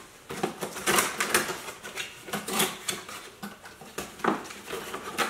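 Cardboard product box being opened by hand: the flaps and a cardboard packaging insert rustle and scrape, with irregular clicks and taps.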